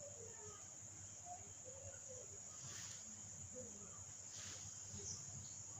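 Steady high-pitched chirring of a cricket chorus, with two brief rustling noises in the middle.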